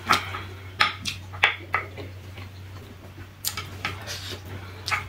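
Spicy ramen noodles being eaten with chopsticks: chewing mouth sounds with about seven sharp clicks and smacks at uneven intervals.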